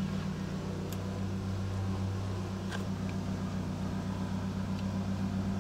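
A steady low mechanical hum, like a small motor running, with a fast even flutter.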